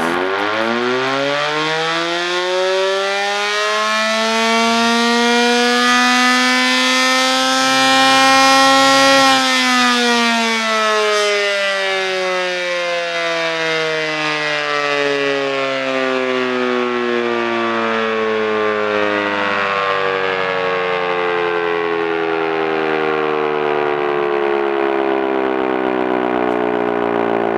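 Early low-tone Federal Model 5 electromechanical siren starting up: its wail climbs in pitch for about nine seconds, then slowly falls.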